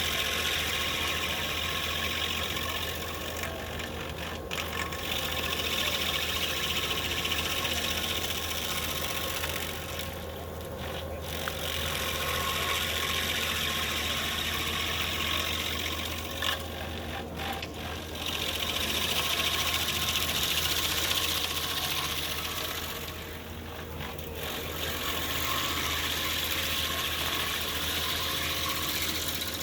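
Skid-steer engine running under load, driving a Miller stump grinder's 26-in. wheel as it grinds. A loud, coarse grinding noise swells and dips back about every six to seven seconds over a steady engine drone.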